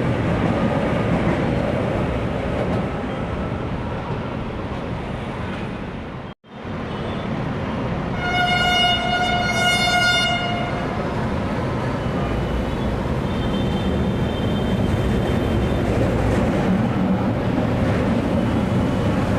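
LRT-1 light rail trains running through a station: the rumble of one train, a sudden break where the footage cuts, then another train's running noise with its horn sounding one steady tone for about two and a half seconds.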